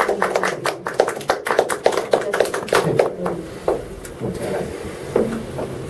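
A small group of people applauding, the claps thinning out after about three seconds.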